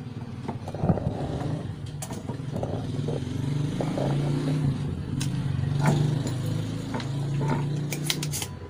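An engine running with a steady drone whose pitch shifts in steps, getting louder toward the middle and easing off near the end. A few sharp clicks near the end.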